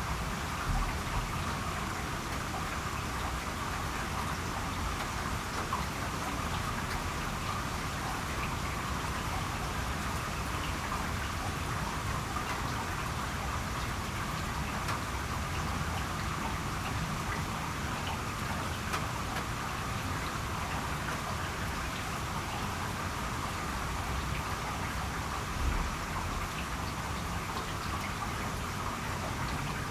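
Steady rain falling, an even, unbroken hiss of countless drops, with a couple of brief low bumps about a second in and again near the end.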